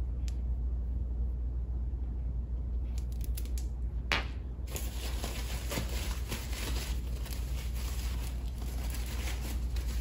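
Plastic wrapping crinkling and rustling as crystal towers are unwrapped by hand. It starts with a sharp click about four seconds in and runs on densely after that.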